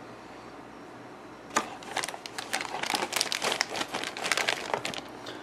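Clear plastic bag around a model kit's parts sprues crinkling and crackling as it is handled. It starts about a second and a half in and lasts about three seconds.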